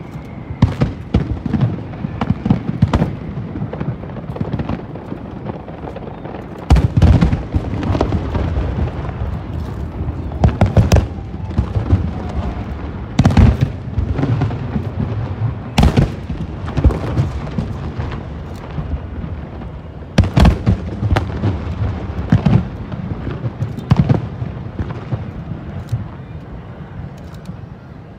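An aerial fireworks display: a continuous barrage of booms and crackling bursts over a low rumble, with the loudest volleys coming every two to three seconds.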